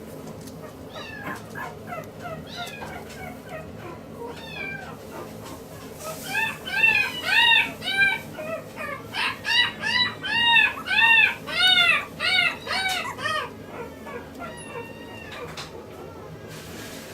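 Maltese puppy whimpering softly, then from about six seconds in a run of a dozen or so short, high-pitched cries, about two a second and much louder, fading out after about thirteen seconds.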